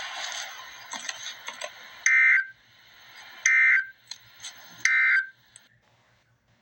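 Emergency Alert System end-of-message data signal: three short, loud bursts of screeching digital tones about a second and a half apart, marking the end of the alert. They sit over a hiss with scattered clicks that stops shortly after the last burst.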